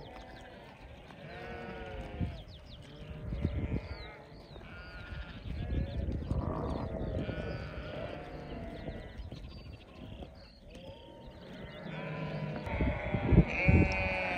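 A flock of sheep bleating: many short calls overlapping at different pitches, with a brief low rumble near the end.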